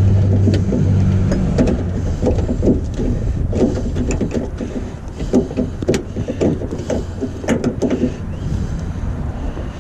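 Irregular clicks, knocks and rattles of a replacement door handle and its linkage being worked into a truck door by hand. A low hum under it fades out in the first second or two.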